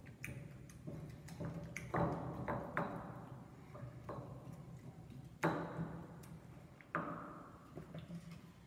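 Stone pestle knocking and grinding in a volcanic-stone molcajete, mashing chiles into salsa: irregular sharp knocks with a short ringing tail, the loudest about two, five and a half and seven seconds in.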